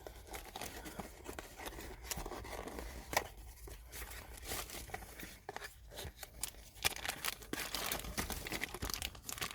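Plastic packaging crinkling and rustling as a packeted ignition switch is handled, with scattered small clicks and taps.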